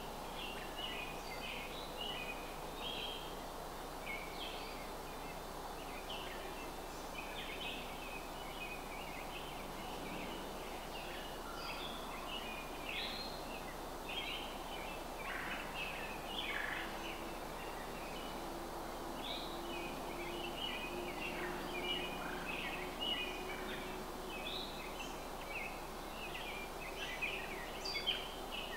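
Birds calling and singing, many short chirps scattered throughout, over a steady background hiss of outdoor noise.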